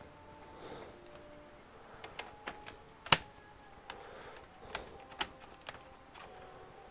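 Scattered light clicks and taps as a laptop's bottom cover is set onto the chassis and pressed into place around its edges, with one sharper click about three seconds in.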